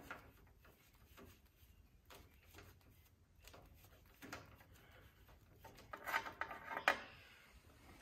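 Socket wrench loosening and unscrewing a lawn tractor's spark plug: faint scattered metallic clicks and scraping, with a cluster of louder clicks about six to seven seconds in.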